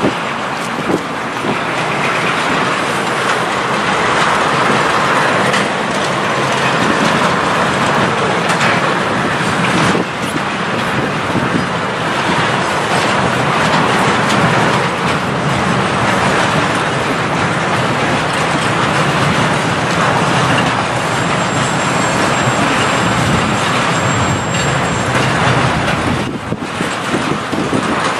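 Freight train of eight-axle tank cars rolling past close by, a steady loud rumble and rattle of wheels on the rails.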